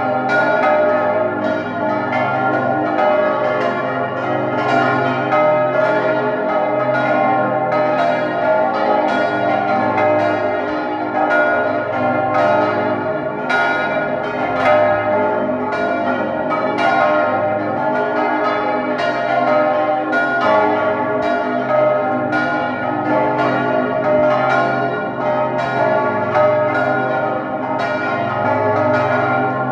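Full peal of swinging church bells, all ringing together: a ring of bronze bells cast mainly by Johann Hahn of Landshut, the largest on A-flat. The strikes overlap steadily and irregularly, with no pause.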